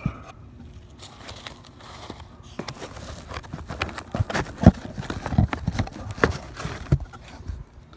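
Hands pulling a GoPro Hero camera out of its foam box insert: foam and cardboard rustling and scraping, with a run of small knocks and clicks, the sharpest about halfway through.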